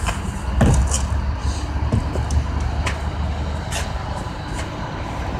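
Industrial yard background noise: a steady low rumble of vehicles and machinery, with a few faint knocks.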